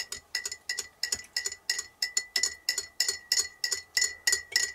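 Teaspoon stirring in a mug, clinking against the side in a steady rhythm of about three strikes a second, with the mug ringing between strikes.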